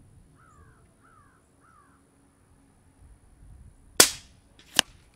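A moderated Katran Compact .22 regulated PCP air rifle fires a single shot about four seconds in, a sharp crack, followed under a second later by a second, shorter sharp knock. Before the shot a bird calls three times, short falling calls.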